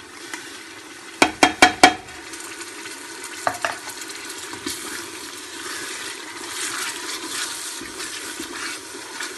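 Tomatoes and spice masala frying in hot oil in a pressure cooker pot, a steady sizzle with stirring that grows a little louder in the second half. Four quick sharp knocks come a little over a second in, and two more at about three and a half seconds.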